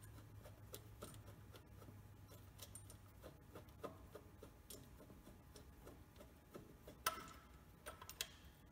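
Faint light clicks and taps of hands working at the metal fastenings behind a Datsun 240Z's air cleaner backplate, with one sharper click about seven seconds in and a few more just after, over a faint low hum.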